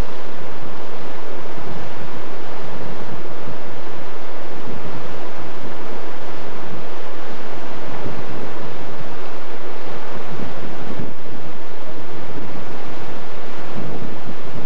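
Strong wind buffeting the microphone aboard a moving ship, over a steady rush of water. The noise is loud and gusty throughout.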